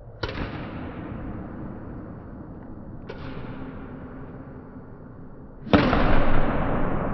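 Badminton racket striking a shuttlecock three times, each a sharp crack that echoes in a sports hall. The last strike near the end is the loudest.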